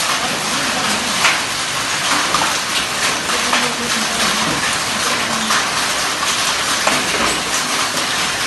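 Hailstorm: a dense, steady rush of heavy rain with many sharp ticks of hailstones striking hard surfaces.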